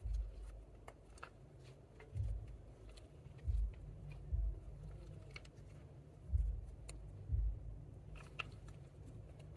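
Hands kneading and stretching a sticky glitter slime, with many small sticky clicks and pops and about six soft, dull thumps as it is squeezed and pressed down.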